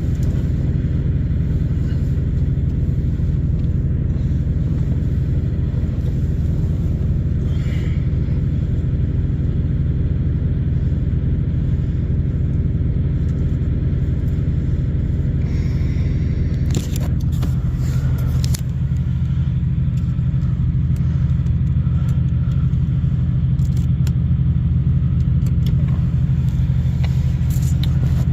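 Semi-truck's diesel engine idling steadily, a low rumble heard from inside the cab. A few short clicks and rustles come a little past the middle.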